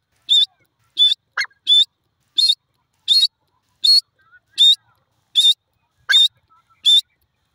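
Grey francolin calling: a steady series of about ten short, high, sharp notes, one roughly every 0.7 seconds. Twice a lower, falling note is mixed in among them.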